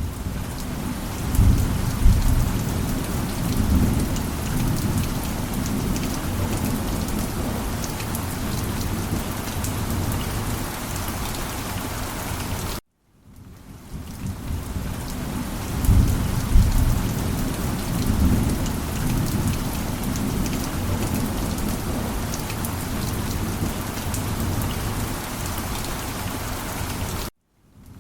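Steady heavy rain with rolling thunder rumbling low, swelling about two seconds in and again about sixteen seconds in. The track drops out to silence for a moment about thirteen seconds in and again near the end, where the rain-and-thunder loop restarts.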